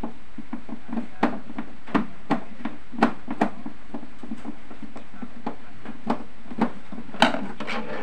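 Plastic rear casing of an old Sharp CRT television being handled and worked loose with a screwdriver: irregular sharp plastic clicks and knocks, one or two a second, with a louder cluster about seven seconds in as the cover comes away. A steady low hum runs underneath.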